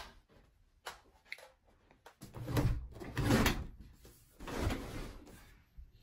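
Closet door being opened, with two scraping sounds: the first lasts about a second and a half, the second is shorter.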